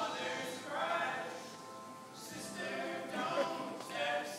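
Several male voices singing together in close harmony, held chords moving in slow phrases, live in a large reverberant concert hall heard from within the audience.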